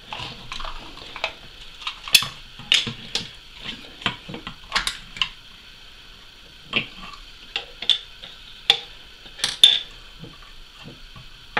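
Hard plastic clicks, snaps and knocks of a submersible aquarium powerhead being taken apart by hand, its pieces put down on a worktop, coming irregularly with short scrapes between.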